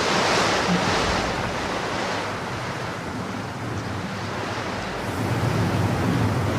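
Heavy rain falling, a dense steady hiss that swells and eases.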